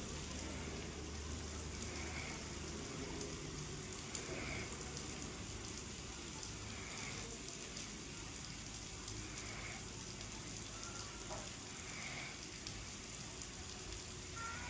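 Steady rain falling, a continuous hiss with fine pattering ticks. A faint short sound repeats about every two and a half seconds behind it.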